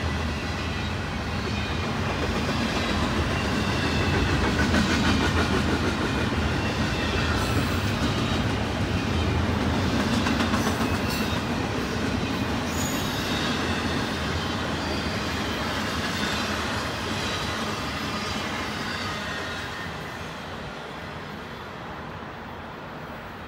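Intermodal double-stack freight cars rolling past, their steel wheels rumbling and clattering on the rails. The sound fades over the last few seconds as the end of the train goes by.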